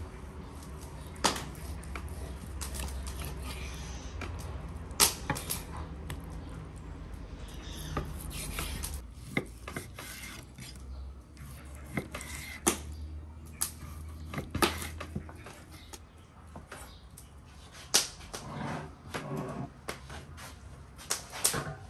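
Kitchen knife cutting raw beef heart on a wooden cutting board: irregular sharp knocks as the blade strikes the board, about a dozen spread through, over a low steady hum.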